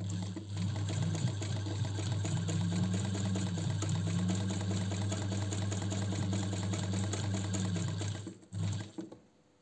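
Singer 216 zigzag sewing machine running steadily, stitching the return side of a zigzag buttonhole: a steady low motor hum with fast, even needle ticking. It stops about eight seconds in, with a short burst of stitching just after.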